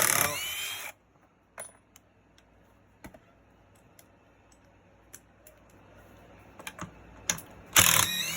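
Cordless impact driver run briefly twice, its motor whine rising in pitch, once at the start and again near the end, with scattered clicks and taps of tool and bolt handling in between.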